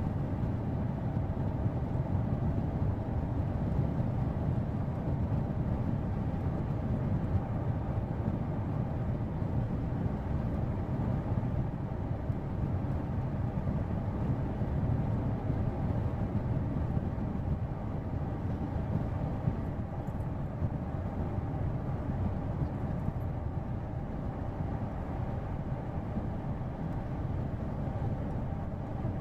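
Steady low rumble of a car's road and engine noise, heard inside the cabin while driving.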